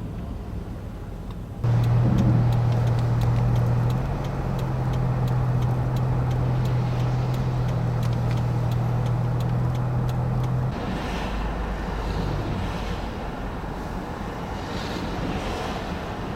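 Motor vehicle running on a snowy road: a steady low engine drone starts abruptly about two seconds in and cuts off around ten seconds, over road noise with faint clicking, after which quieter traffic noise remains.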